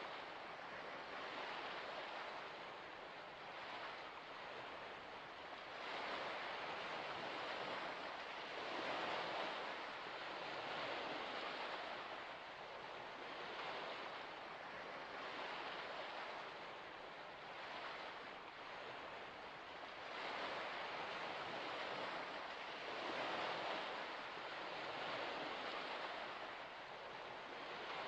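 Small waves of a shallow salt lake lapping at the shore, a soft wash that swells and fades every second or two.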